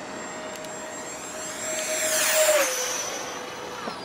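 FMS Yak 130's 70 mm electric ducted fan whining as the model jet makes a fast low pass. The whine swells to its loudest about two and a half seconds in, then drops in pitch as the jet goes by.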